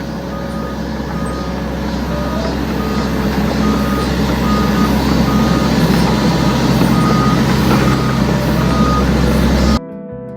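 Excavator running under load with its travel alarm beeping steadily, a short high beep a little more often than once a second over the engine. The machine noise grows slightly louder and cuts off suddenly near the end, giving way to acoustic guitar music.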